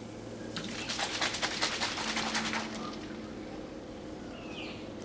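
Plastic soda-water bottle handled at its screw cap: a rapid run of small clicks and rattles lasting about two seconds, as the cap is put on the bottle of magnesium carbonate and soda water.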